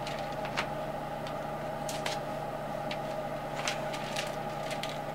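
Light, scattered clicks and taps of thin wooden kit parts being handled and slid into the slotted girders of a model bridge, over a steady background hum.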